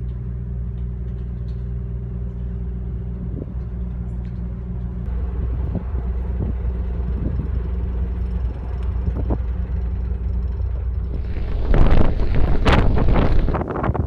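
Steady low drone of the ferry's machinery, a hum of several low tones. Near the end, wind buffets the microphone loudly.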